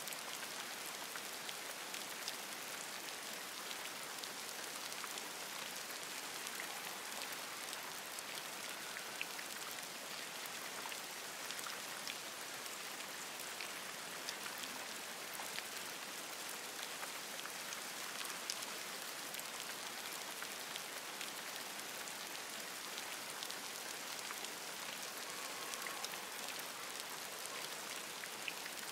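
Steady rain pattering on forest leaves, with many sharp individual drops ticking through the even hiss.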